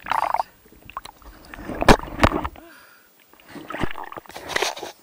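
Water sloshing and splashing right at a camera held at the waterline, in uneven bursts, with two sharp knocks close together about two seconds in.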